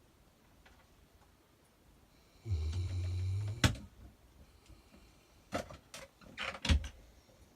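A sleeping dog snoring: one long, low, rumbling snore about two and a half seconds in that ends with a sharp click, then a few short, sharp breathy sounds near the end.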